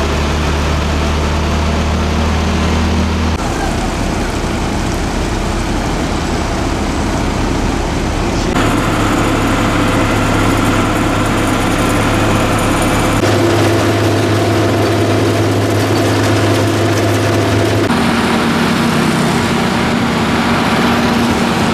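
Heavy diesel engines of a Ford dump truck and an asphalt paver running steadily while the truck feeds hot asphalt into the paver. The engine hum changes abruptly several times.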